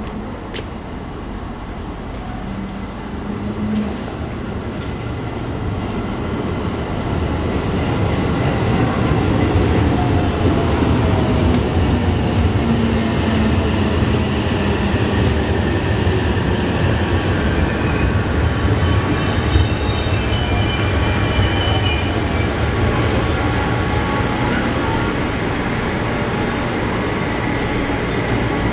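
A JR Central electric train, a 313 series coupled to a 211 series, pulling into the station and braking to a stop. Its running rumble grows louder about six seconds in, a motor whine falls in pitch as it slows, and high squealing tones from the wheels and brakes come in the last third as it halts.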